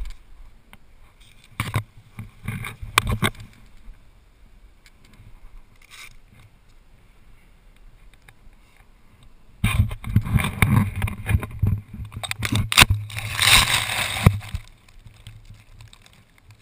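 Thumps and rough noise on a helmet-camera microphone as a BASE jumper touches down on grass. After a quiet stretch comes about five seconds of loud rustling and knocking close to the microphone as the camera is handled and set down in long grass.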